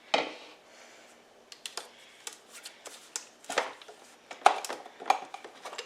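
Irregular light clicks and knocks of kitchen utensils and dishes being handled, with a few sharper taps about three and a half, four and a half and five seconds in.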